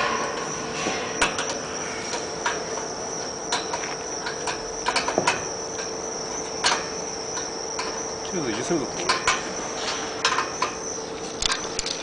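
Scattered light knocks and clicks from working on the carbonization furnace door and its fire-resistant seal strip, over a steady high-pitched whine and a low steady hum.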